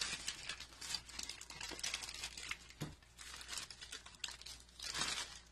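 Clear plastic bag crinkling and rustling in irregular crackles as it is handled, with a louder rustle near the end.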